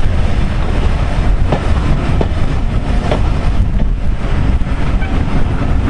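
Passenger train running, heard from an open carriage window: a steady heavy rumble of the coach wheels on the rails, with a few sharp clicks as they cross rail joints.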